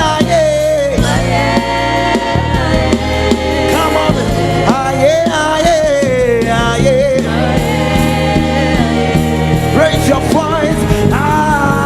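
Live gospel worship music: voices singing a medley over band accompaniment with a steady bass line.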